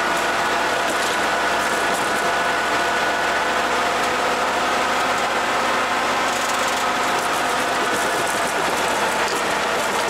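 AWD GMC C7000 dump truck running steadily as it pushes its front plow through deep snow, with a steady whine over the engine noise.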